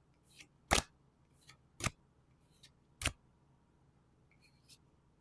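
Pokémon trading cards handled one at a time: a soft slide followed by a sharp card snap, three times about a second apart, then a faint rustle near the end.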